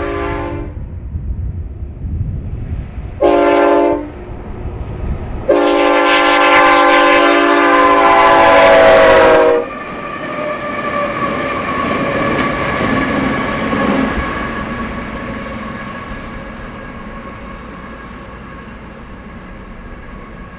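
Diesel freight locomotive horn blowing long, short, long, the pattern that closes a grade-crossing signal. The last blast is the loudest and lasts about four seconds. The passing train's running noise then fades slowly away.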